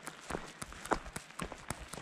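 Footsteps crunching on a gravel trail, a quick, even train of steps.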